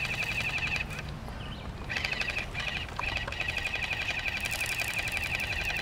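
Insects buzzing in the summer trees: a steady, rapidly pulsing high drone that breaks off about a second in and comes back about a second later. A couple of faint clicks come soon after it returns.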